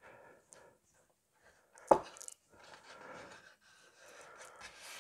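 Soft rubbing and handling noises as a carpet piece is folded over and pressed into the floor of a plastic scale-model car, with one sharp tap about two seconds in.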